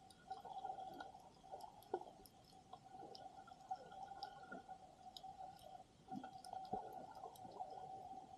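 Faint underwater ambience picked up by a submerged camera: scattered small clicks and crackles over a steady hum, with soft water movement.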